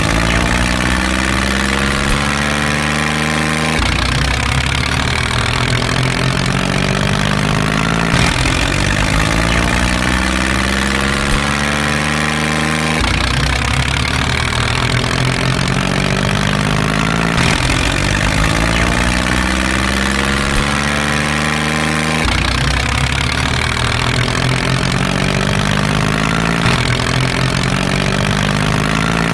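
Tractor engine running and revving up again and again. Its pitch rises and then starts over abruptly about every four to five seconds, like a looped engine sound track.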